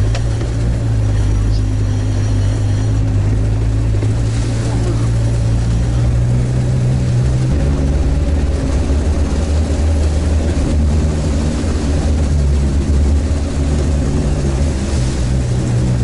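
Diesel engine of a Sherp amphibious all-terrain vehicle running steadily, heard from inside the cab while the vehicle swims and comes ashore. Its note drops about halfway through and rises again near the end.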